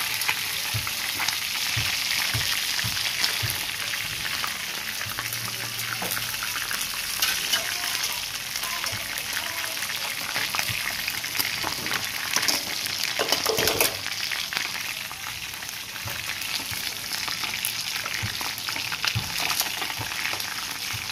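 Chicken pieces frying in hot oil in a wok, being browned: a steady sizzle with frequent small crackles and pops.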